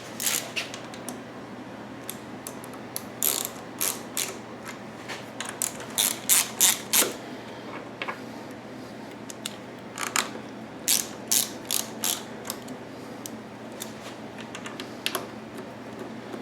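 Ratchet wrench clicking in short bursts of quick clicks with pauses between, as the valve cover screws on a 212cc small engine are driven in.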